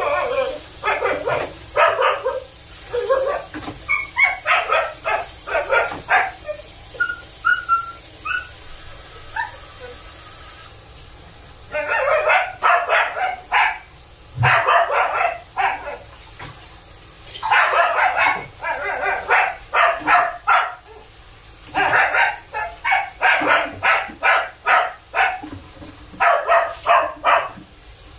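Dog barking in rapid volleys of several barks a second. The barking comes in bouts of a few seconds with short lulls between, and is very noisy.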